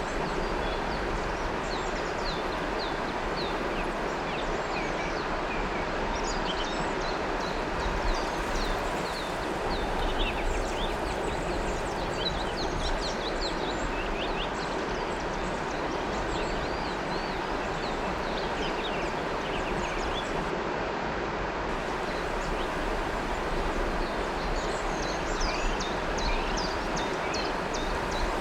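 River water flowing with a steady rushing sound, with many birds chirping over it in quick, short calls throughout.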